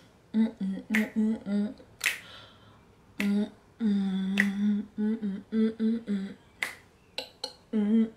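A woman humming a short, rhythmic wordless tune in short notes while snapping her fingers about once a second.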